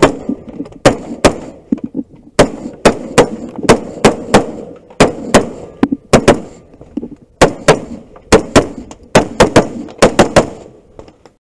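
AR-15-style carbine fired in rapid strings, mostly quick pairs: about two dozen sharp shots, each with a short echoing tail. The firing stops about a second before the end.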